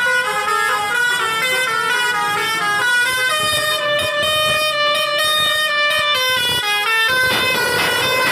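Seven-trumpet 'telolet' musical air horn on a tour bus playing a tune: quick stepped notes, then long held notes in the middle, a brief break, and quick notes again, with a noisy rush rising under the horn near the end.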